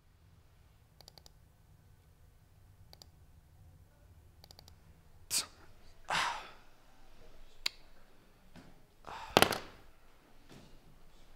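Computer mouse clicking in small clusters, with a few louder sharp knocks and a short rush of noise in the second half, over a low steady hum.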